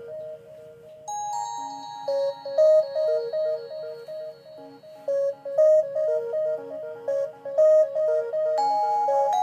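ZTE Z222 mobile phone playing a polyphonic ringtone: a synthesized tune of short repeated notes, about four a second, in a looping figure. Held chord tones join about a second in.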